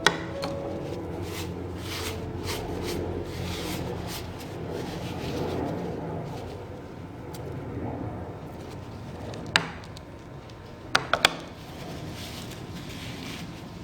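Whole lemons being wiped by hand to rub the salt off their peel: a soft, uneven rubbing and rustling. A sharp knock sounds at the start, another about nine and a half seconds in, and a quick pair about eleven seconds in.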